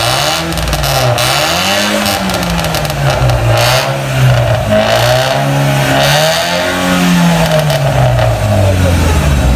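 A Chevrolet Aveo engine revved repeatedly through a straight-pipe exhaust, its pitch rising and falling with each blip of the throttle and dropping back toward idle near the end.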